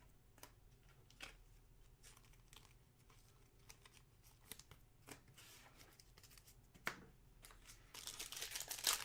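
Faint handling of trading cards: soft clicks and slides as cards are flipped through. About eight seconds in, a louder crinkling starts, a card pack's wrapper being handled and opened.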